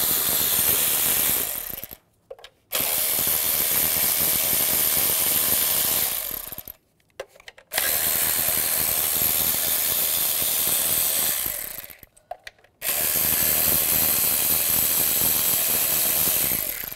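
Cordless Milwaukee ratchet motor spinning out the 10 mm bolts that hold an ignition coil pack. The motor runs in four long stretches with short pauses between: one already going at the start stops about two seconds in, then three more run about four seconds each.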